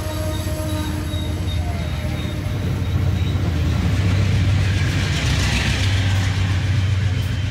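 Amtrak Northeast Regional passenger coaches passing close at speed: a steady rumble of wheels on rail with rushing air, getting louder about three seconds in.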